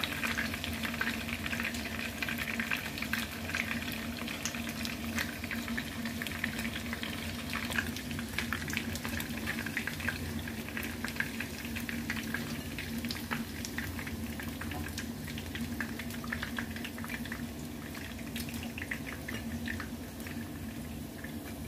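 Breaded chicken fillets shallow-frying in hot oil in a pan: a steady sizzle full of small crackles and pops, over a steady low hum.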